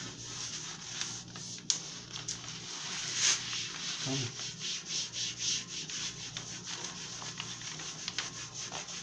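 Rubbing and scraping of a flat edge and hands over adhesive contact paper as it is smoothed onto a glass table top, in repeated back-and-forth strokes.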